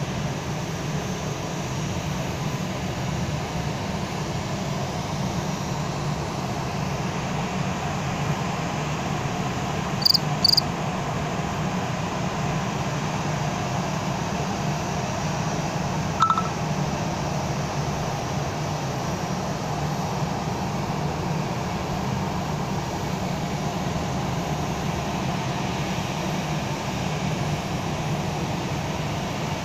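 Steady low rumble of jet airliners taxiing, heard through the terminal glass. Two short high beeps sound about ten seconds in, and a brief tone about sixteen seconds in.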